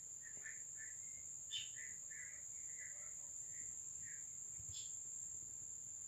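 Faint background ambience: short bird chirps scattered throughout, with a few sharper calls, over a steady high-pitched insect drone.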